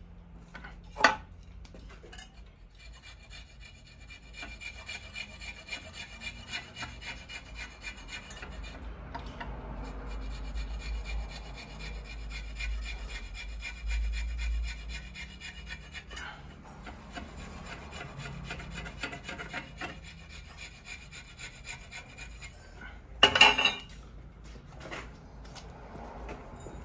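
A metal part being worked to size, heard as a steady rasping rub with a high ringing edge, pausing briefly about nine seconds in. A sharp knock comes about a second in, and a loud clatter comes near the end.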